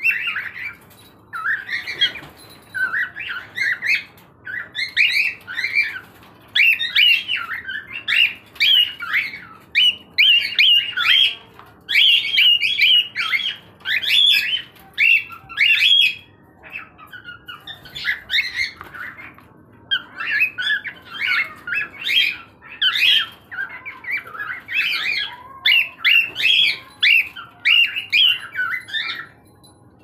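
Three-month-old grey cockatiel whistling its early juvenile song: runs of short, chirpy notes that bend up and down, with a pause of a few seconds past the middle.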